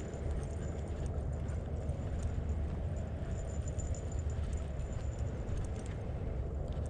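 Footsteps and light tapping of a person and a small dog walking on a paved path, over a steady low rumble.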